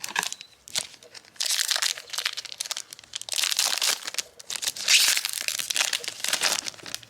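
A trading-card booster pack wrapper being crinkled and torn open, in three noisy rustling bursts of a second or two each, after a few sharp clicks near the start.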